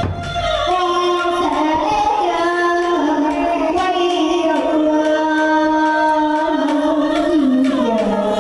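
Hát bội (tuồng) singing: one voice holds a long, wavering line of sustained notes, stepping between pitches and gliding down near the end.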